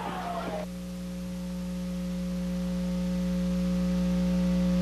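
A steady hum made of several fixed tones, the lowest and strongest deep in pitch, sets in about half a second in and slowly grows louder.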